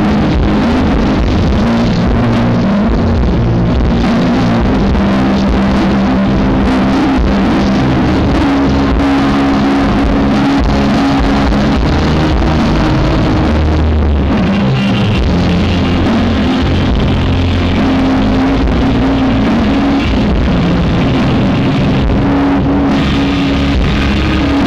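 Live rock band music with electric guitar and drums, captured through a faulty camera microphone, so the sound is loud, muddy and heavily distorted.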